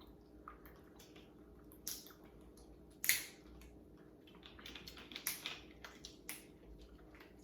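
King crab shell being cracked and eaten: several sharp cracks and clicks, the loudest about three seconds in, with a cluster of quieter clicks later, over faint chewing.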